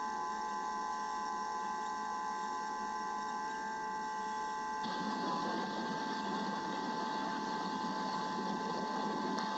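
Steady electrical whine of the nest camera's audio, several thin high tones over a hiss, with the hiss swelling louder about halfway through.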